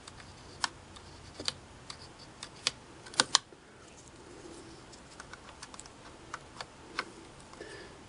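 Scattered light clicks and taps at an irregular pace, with a close pair loudest about three seconds in, from the cam selector mechanism of a Singer 401A sewing machine being worked by hand.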